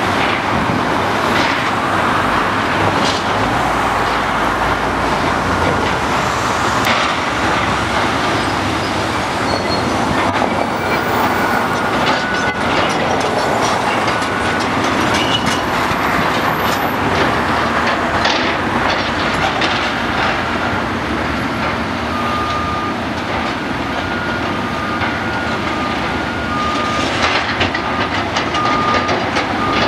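Hydraulic excavators demolishing a concrete building: steady heavy diesel engine running under the crunch and clatter of breaking concrete and falling debris, with sharp knocks scattered throughout. In the second half, short high squeals repeat every second or so.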